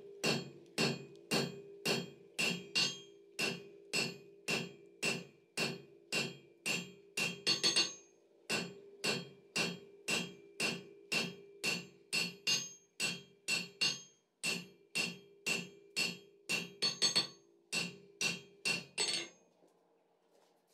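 Hand hammer striking red-hot steel bar on an anvil, steady blows about two a second with the anvil ringing between them, a few quick double taps mixed in. The smith is knocking the corners off a forged square taper to make it eight-sided. The blows stop near the end.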